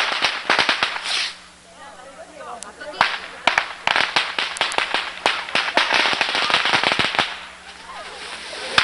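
Strings of firecrackers going off in rapid runs of sharp crackling pops, in two bursts with a short lull between them, the second burst the longer.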